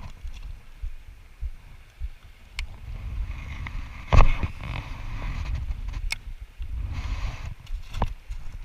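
Wind buffeting the camera's microphone, with two stretches of rushing, splashing water, a few sharp clicks and one loud knock about four seconds in.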